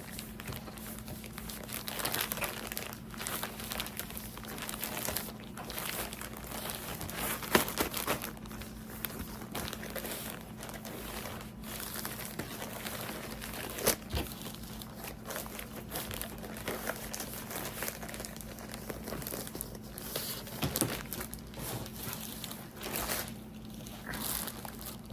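Packaging being handled: irregular crinkling and rustling with a few sharp crackles, over a faint steady hum.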